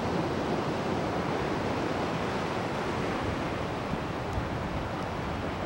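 Ocean surf breaking and washing up a sand beach: a steady rushing noise.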